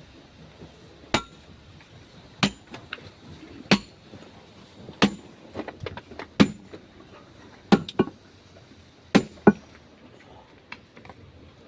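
Hand hammer blows on steel stoneworking tools in granite, each strike a sharp metallic clink. There are about eight strikes, roughly one every second and a quarter, with two in quick succession near the end.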